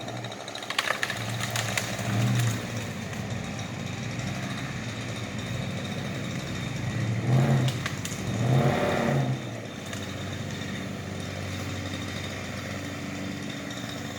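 Chainsaw idling between cuts, swelling briefly twice about halfway through.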